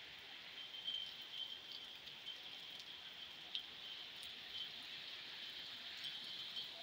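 Heavy rain falling steadily, an even hiss with scattered sharper clicks of drops landing close by.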